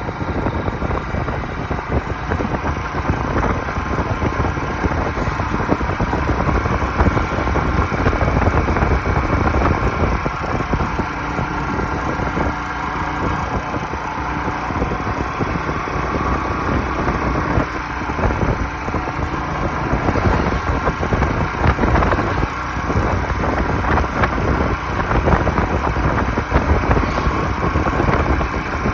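Motorcycle engine running steadily while riding along, with wind rushing over the microphone.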